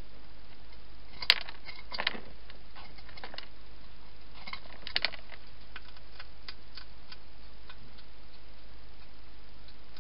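Wild hedgehog eating from bowls inside a plastic feeding box: a string of sharp clicks and crunches over a steady hiss. The loudest comes about a second in, with clusters around two and five seconds in and fainter clicks after.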